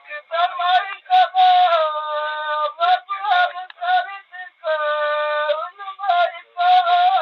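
A male folk singer's voice singing a Bagheli birha, in phrases of long, drawn-out, wavering notes broken by short breaths. No steady beat stands out, and the recording sounds thin, with its treble cut off.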